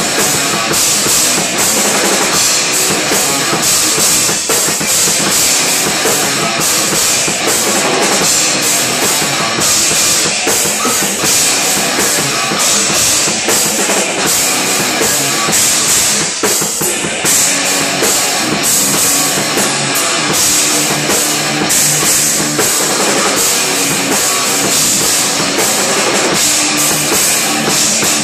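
A band playing live heavy rock or metal: two electric guitars over a full drum kit. It is loud and dense, with no breaks.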